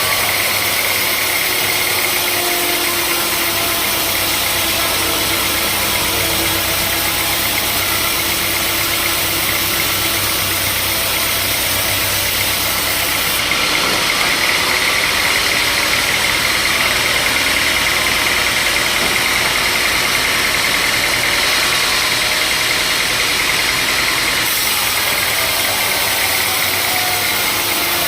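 Sawmill machinery running steadily with a low hum, turning brighter and a little louder for about ten seconds in the middle, as when the saw is cutting through a log.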